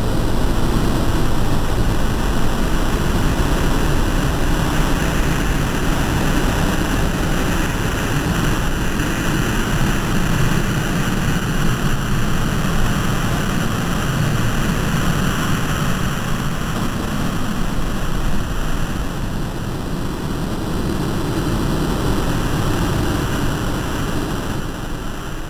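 Steady, dense noise drone, strongest in the bass, from a soundtrack built of lightly computer-processed field recordings; it begins to fade near the end.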